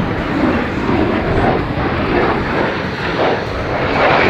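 A USAF A-10 Thunderbolt II's twin General Electric TF34 turbofan engines as the jet manoeuvres overhead, giving a continuous jet engine noise that wavers up and down and grows louder near the end.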